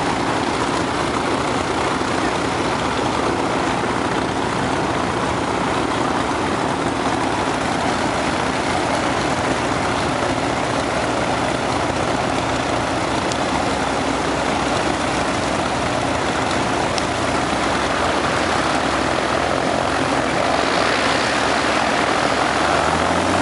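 Jet engines of a line of airliners waiting for take-off, running steadily in a constant roar with a low hum beneath, growing a little louder about 20 seconds in.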